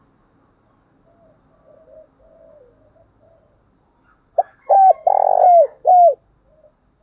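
Spotted dove cooing. Faint soft coos come first; then, about four seconds in, a loud phrase of a short note and three coos, the middle one longest, each ending with a drop in pitch.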